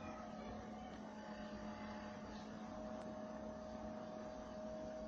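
Room tone: a faint steady low hum over light hiss, with a second, higher steady tone coming in about halfway.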